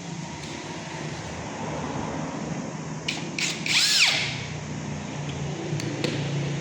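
A small handheld power tool runs briefly about halfway through, its whine rising and falling in pitch as it spins up and stops, over a steady low hum, with a few sharp clicks around it. It is heard during the removal of a shorted IGBT from a welding machine's board.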